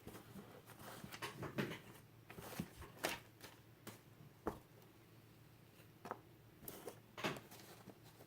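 Small plastic Lego bricks being handled and pressed together: faint scattered clicks and rattles, busiest in the first few seconds, then a few sharper single clicks.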